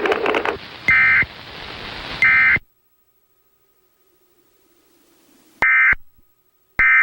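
Emergency Alert System end-of-message data bursts: short, loud two-tone digital bursts about a second apart. Two play over a hissy broadcast feed. The audio then cuts to silence, and near the end two more bursts follow.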